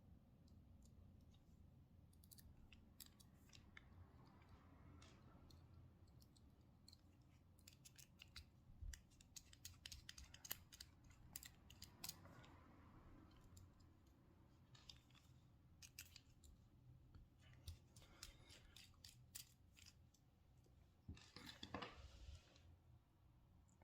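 Faint clicks and snips of hand tools working at a small RF bandpass filter's casing to open it, with a short scraping stretch near the end.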